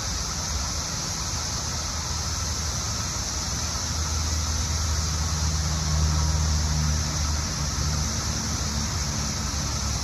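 A steady, high droning chorus of Brood X periodical cicadas, mixed with highway traffic. A truck's low rumble swells in the middle and then fades.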